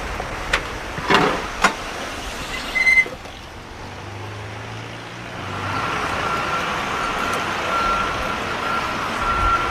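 A few sharp knocks, then a vehicle's reversing alarm starts beeping repeatedly about six seconds in, over steady traffic noise.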